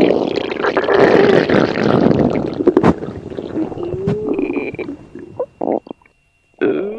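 Loud stomach growling: long gurgling rumbles for about five seconds, with a short rising squeal near the middle. It breaks up into a few quick gurgles and pops, falls silent briefly, and starts gurgling again just before the end.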